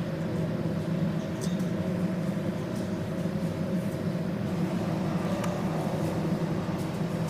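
A steady low mechanical hum with a few faint clicks scattered over it.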